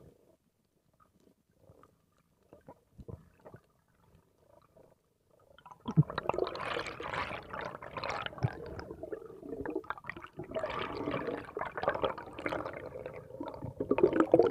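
Underwater sound: a few faint scattered clicks, then from about six seconds in a dense bubbling and rushing of water at the camera as the diver swims up toward the surface, with air bubbles rising past.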